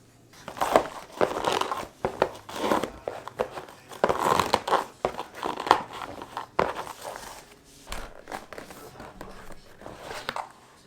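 Irregular crinkling and crunching handling sounds in a series of short noisy bursts, louder around the middle.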